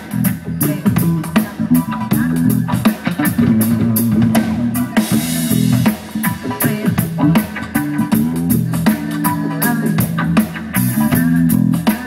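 Live rock band playing amplified: electric guitar, bass guitar and drum kit, with a steady drum beat under a moving bass line.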